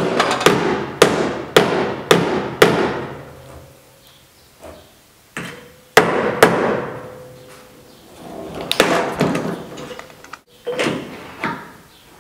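Body hammer tapping down a high spot in the steel body panel of a 1966 Mustang while a welded stud is held out with a stud lever. Six sharp metallic strikes about two a second, then three more after a pause, then a few lighter scattered knocks near the end; some strikes leave a brief ring.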